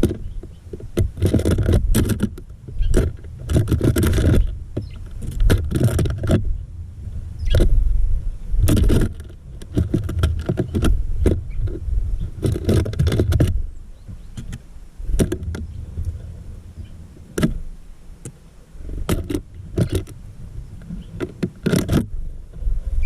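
Small birds moving about on the feeder right against the camera: irregular knocks, taps and scratches of beaks and claws on the feeder, over heavy low bumps and rumbling as they land and jostle.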